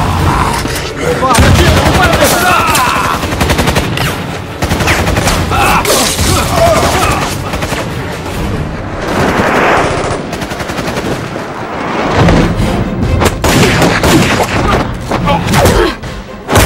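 Film soundtrack of rapid automatic gunfire in long strings of shots, over background score, with a man screaming in pain in the first few seconds.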